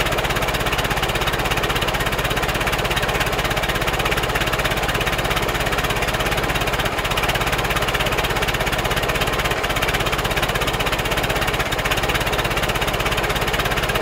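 Ford Model A four-cylinder engine running steadily as the car drives, with a rapid, even exhaust beat.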